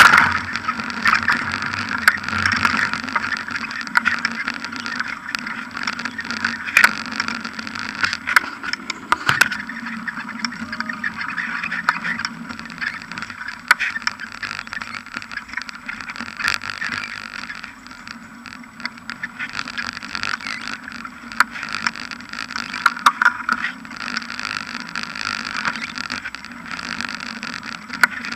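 A bicycle in motion, heard through a camera mounted on the bike beside the front tyre: a steady rushing noise of riding, broken often by short, sharp knocks and rattles as the bike goes over bumps on road, grass and path.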